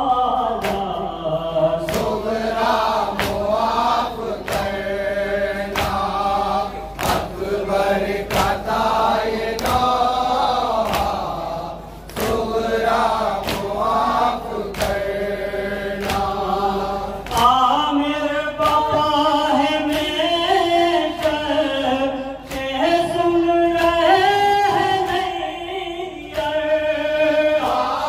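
A group of men chanting a noha (Shia lament) in unison behind a lead reciter on a handheld microphone. Rhythmic chest-beating (matam) slaps keep time about every three-quarters of a second. A little past halfway the chorus moves up in pitch and grows fuller.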